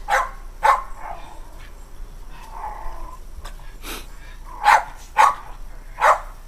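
American Eskimo dog barking: five sharp barks, a quick pair at the start and three more near the end.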